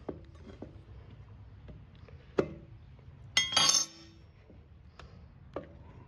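Metal tools clinking and clanking while a dirt bike tire is levered onto its rim. There are a few light taps, a sharp knock about two and a half seconds in, and a loud ringing metal clatter just after halfway.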